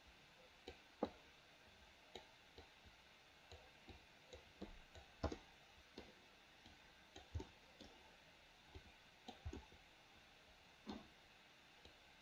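Computer mouse clicking, irregular single clicks about one or two a second, some louder than others, over a faint hiss.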